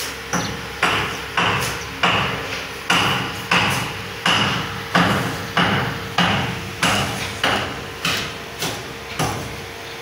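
Steady hammering: metal hammer blows struck at an even pace, a little more than one every half second, each ringing briefly.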